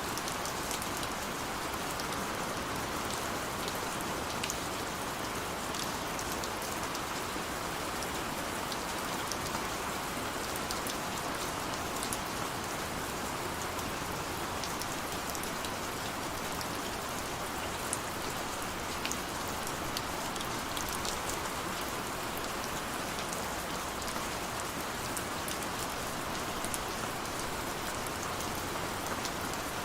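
Steady rain with close drops pattering and ticking on a surface, which the uploader presents as city rain on a window.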